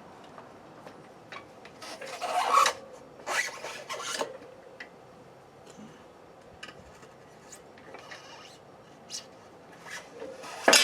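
A knobby dirt-bike tire's rubber bead scraping and rubbing over the wheel rim as it is forced on, in a few short bursts with scattered small clicks. A sharp loud clack comes near the end as the bead goes over.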